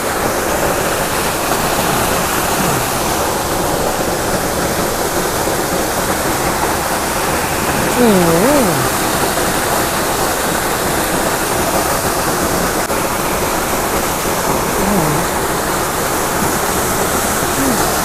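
Steady rush of a waterfall's falling water. A short voice is heard about eight seconds in.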